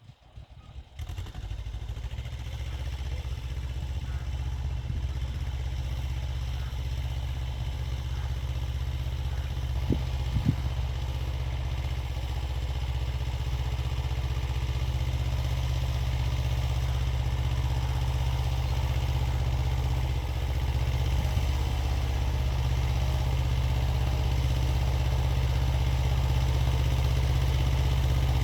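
Xingtai 220 tractor's diesel engine running steadily with its rotary tiller, coming in suddenly about a second in and growing slowly louder. Two short knocks sound about ten seconds in.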